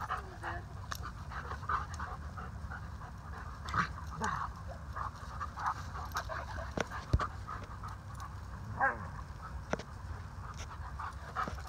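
Two Alaskan Malamutes panting hard in short, ragged breaths as they wrestle in rough play, with a couple of sharp clicks.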